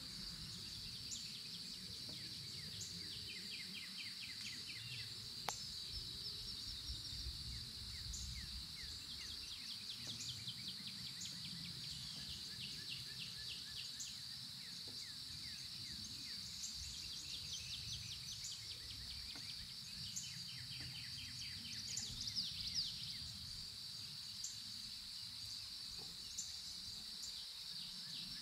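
Nature ambience: a steady high-pitched insect drone, with repeated rapid trills and short high chirps from birds or insects over a low rumble.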